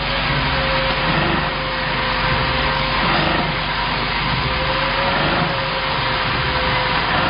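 Vertical form-fill-seal pouch packaging machine running: a steady mechanical noise with a thin, steady whine over it.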